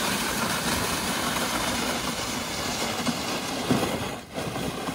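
Plastic ice-fishing sled dragged over lake ice, giving a steady scraping rumble. It breaks off briefly about four seconds in.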